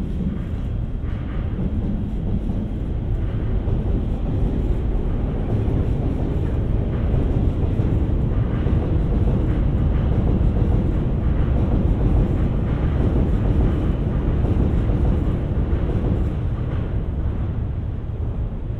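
JR East E001 series 'Train Suite Shikishima' running into the platform, a low steady rumble of wheels on track that swells to its loudest midway and eases as the train slows near the end.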